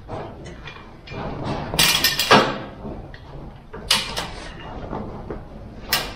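Hi-Lift jack being pumped by its handle: the steel jack ratchets up its bar in a series of sharp metal clanks and clicks, a cluster about two seconds in and single ones later. The jack is lifting against the race car's weight to push the tire bead off the beadlock rim.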